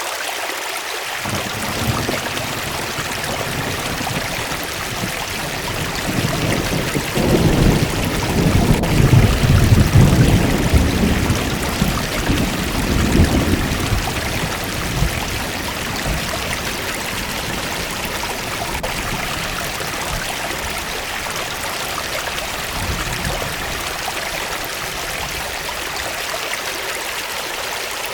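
Waterfall water rushing and splashing steadily, with a deeper, louder rumble swelling up for several seconds in the middle.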